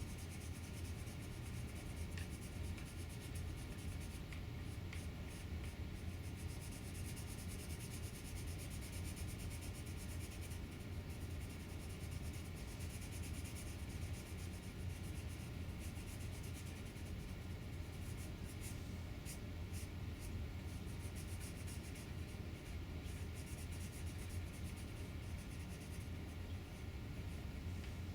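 Washable felt-tip marker rubbing and scratching across a craft piece in continuous colouring strokes, over a steady low background hum.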